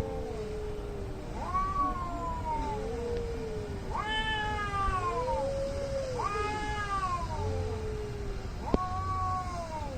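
Two cats caterwauling at each other in an angry standoff. Long drawn-out yowls, each rising then falling, trade back and forth between a lower-pitched cat and a higher-pitched one, about four higher calls against several lower wails.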